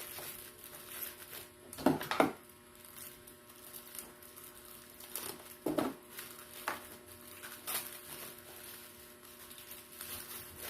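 Handling noise from unpacking small speakers from their box: a few scattered knocks and rustles of packaging, over a faint steady hum.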